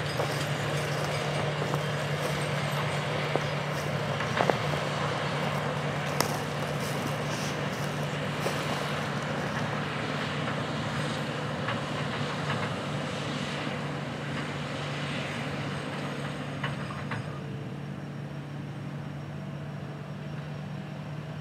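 The diesel engine of a 620 hp Case IH Steiger Quadtrac running steadily under heavy load as it pulls a 9-shank ripper through hard, dry ground, with scattered clicks and clatter. The sound grows a little quieter and duller about three-quarters of the way through.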